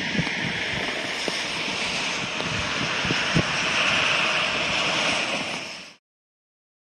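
Wind buffeting the microphone over a steady rush of traffic. Cars pass on a wet road, and the tyre hiss swells about halfway through, then everything cuts off suddenly near the end.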